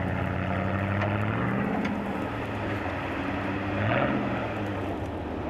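Off-road 4x4's engine running under load as it pushes through deep snow. It revs up about a second and a half in and again, louder, around four seconds in.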